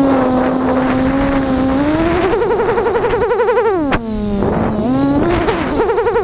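Quadcopter's electric motors and propellers whining as heard from its onboard camera. A steady hum climbs in pitch with a rapid warble about two seconds in, drops sharply with a click around four seconds, wavers up again, and drops sharply near the end.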